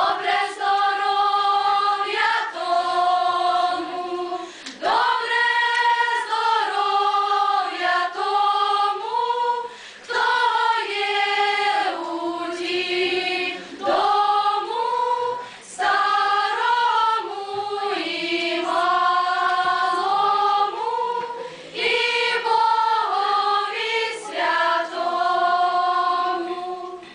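Choir of young voices, women's voices leading, singing a Ukrainian folk wedding song without accompaniment, in long phrases of held notes with short breaks for breath between them.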